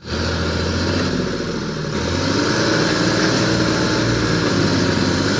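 Farm tractor's diesel engine running steadily at a low, even speed, its note shifting slightly about two seconds in.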